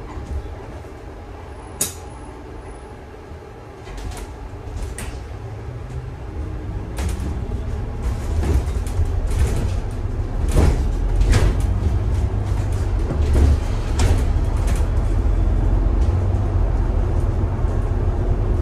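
Bus heard from on board: a sharp click with a brief high-pitched beep about two seconds in. The bus then moves off and gathers speed, its low rumble building steadily, with rattles and knocks from the body.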